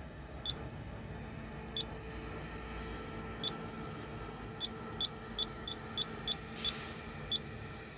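Komatsu excavator cab monitor giving short high key-press beeps as its function key is pressed to scroll through the menu, about eleven beeps, coming faster in the second half. A steady low hum runs underneath, with a brief hiss near the end.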